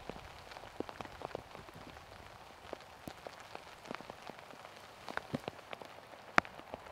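Light rain: scattered drops tapping at irregular intervals over a faint steady hiss, with one sharper tap about six and a half seconds in.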